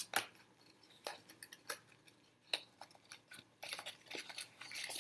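Small cardboard microphone box being opened by hand: scattered clicks and scrapes of the flap and packaging, then a longer rustle near the end as the contents are drawn out.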